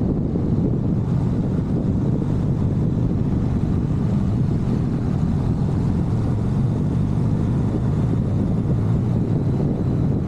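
Wind rushing over the microphone of a camera mounted on a moving motorbike: a steady, low rumble with no let-up.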